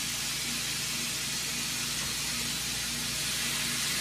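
Marinated riblets sizzling steadily in a hot grill skillet as more pieces are laid into it.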